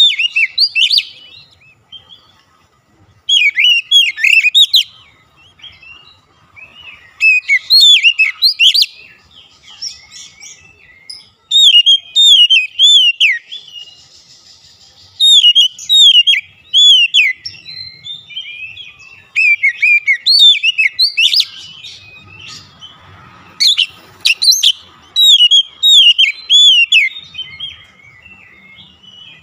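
Oriental magpie-robin (kacer) singing: bouts of fast, varied whistled phrases, each lasting a second or two, with short pauses between them.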